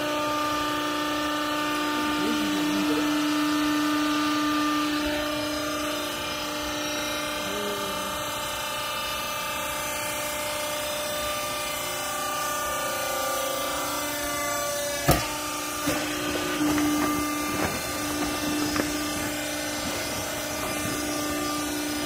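Vertical hydraulic clothes baler's electric motor and hydraulic pump running with a steady hum while the press plate works in the baling chamber. A sharp knock comes about 15 seconds in, followed by a few lighter clunks.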